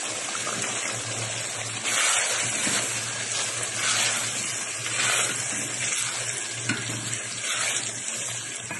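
Curry gravy sizzling in a pan over high heat as it is stirred with a spatula, the hiss swelling a few times as the pieces are turned, while the yogurt and vinegar liquid cooks off. A low steady hum runs underneath.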